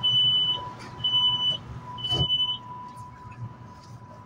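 Metro train door-closing warning beeps: a high beep about once a second, three times, then a thud a little after two seconds in as the doors shut. A faint steady whine from the train runs underneath.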